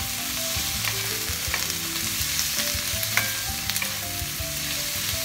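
Vegetables sizzling in a nonstick wok as they are stir-fried with a wooden spatula, with a few sharp taps and scrapes of the spatula against the pan.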